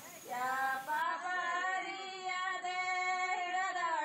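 Background music of a woman singing, holding long notes that waver slightly in pitch.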